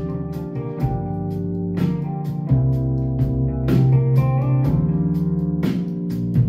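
Guitar-led music with a heavy bass line and a regular beat about twice a second, played on a JBL PartyBox 310 portable party speaker.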